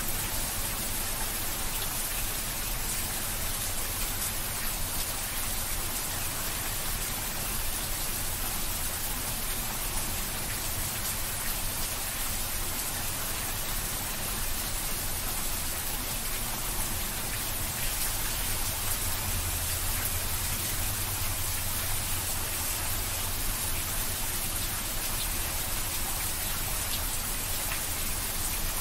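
Heavy rain falling into a shallow layer of standing water: a steady, dense hiss of splashing drops that does not let up.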